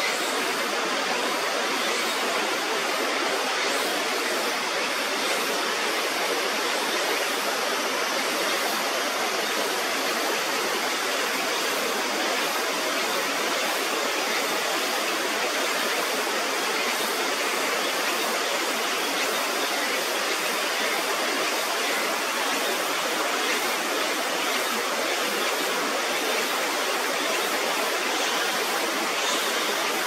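Water pouring over a river weir in a steady, loud rush, the flow swollen to its fullest after a typhoon.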